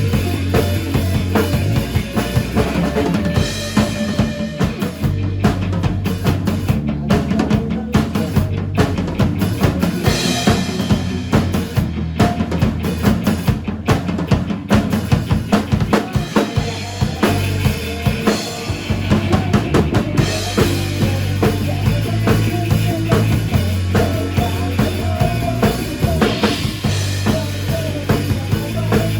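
Band music with a prominent drum kit, kick and snare keeping a steady beat under bass and other instruments.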